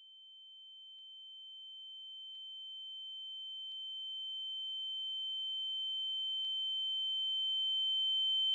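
A single steady high-pitched electronic tone that swells steadily louder, with a much fainter lower tone beneath it and a few faint ticks.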